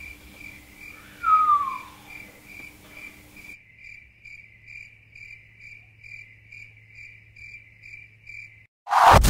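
Cricket chirping, an even train of short high chirps about two or three a second, used as an awkward-silence sound effect. About a second in there is a short falling tone, and near the end a sudden loud noise breaks in.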